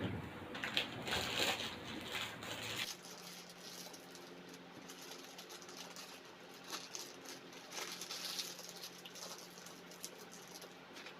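Eating sounds close to the microphone: chewing, with scattered small mouth clicks, busiest in the first few seconds.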